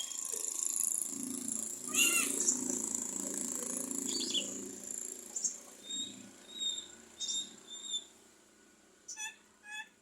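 Javan myna (jalak kebo) calling in full voice: sharp high whistles and squeaks, with a stretch of low chattering about one to five seconds in. Short whistled notes follow, then a quick run of evenly spaced notes near the end.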